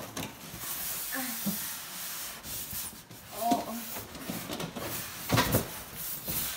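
Styrofoam packing block rubbing and scraping against a cardboard box as it is pulled out by hand, with cardboard rustling and a few louder scrapes near the end.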